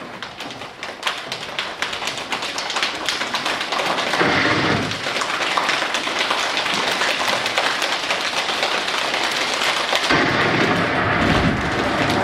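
A large group of children making a rainstorm with body percussion: scattered taps and snaps thicken into a dense, steady patter of hands slapping thighs, growing louder. A deeper thudding joins near the end.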